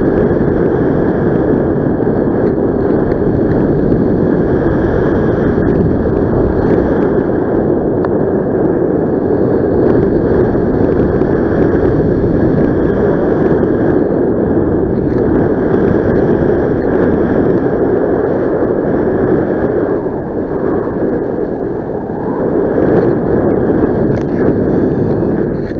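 Loud, steady rush of wind over the microphone from the airflow of paraglider flight, easing slightly about 20 seconds in.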